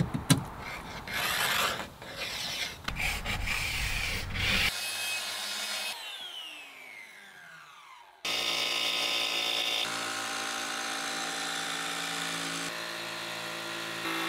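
Knocks and rubbing as a plywood panel is handled and pressed into place. Then a power saw's whine falls as it spins down. From a little past halfway, an electric jigsaw cuts plywood with a steady motor buzz.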